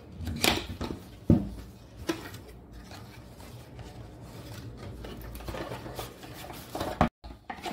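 Cardboard packaging handled by hand: an inner box slid out of its paper sleeve and its flaps opened, with rubbing and scraping of card. Three sharp taps come in the first two seconds, then a quieter steady rustle.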